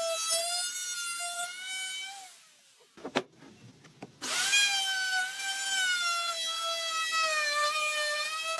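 Handheld electric power tool working wood: a high, steady motor whine that wavers a little under load. It winds down about two seconds in, a couple of sharp knocks follow, and the tool starts up again abruptly a little after four seconds.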